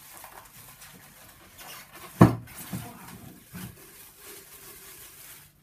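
Plastic wrapping rustling as a glass blender jar is handled in its tight cardboard packing. One sharp knock comes about two seconds in, with two softer knocks shortly after.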